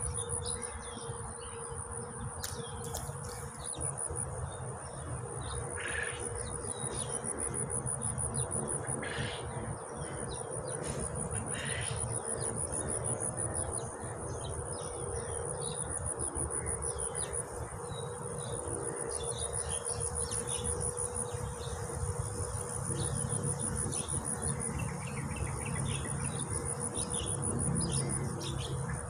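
Insect trilling: a high-pitched, rapidly pulsing trill that runs on steadily.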